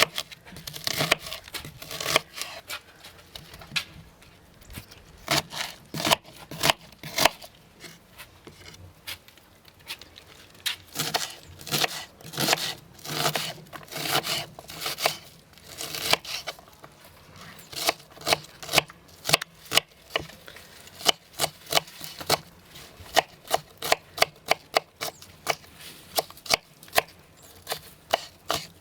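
Knife chopping food on a cutting board: a string of sharp, irregular chops, coming in quicker runs in the second half.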